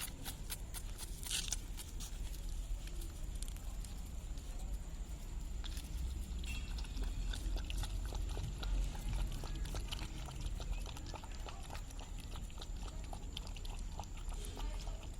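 Puppies eating, with a steady run of small chewing clicks and smacks.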